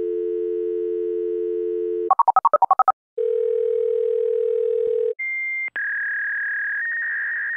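Telephone tones: a steady dial tone, then a quick run of about eight touch-tone keypad beeps about two seconds in. Another steady tone follows, and from about six seconds a single high steady tone.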